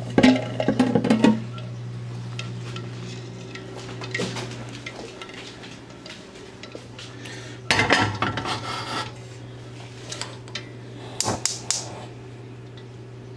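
A stainless steel pot holding eggs in water clattering and knocking as it is handled and set down on the stove's burner grate, with bouts of clatter near the start, about eight seconds in and about eleven seconds in. A steady low hum runs underneath.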